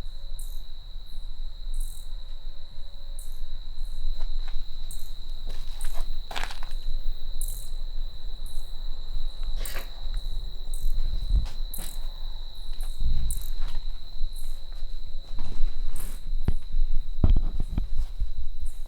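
Insects droning and chirping: a steady high-pitched tone with short, irregular chirps above it. A few low thumps come near the end.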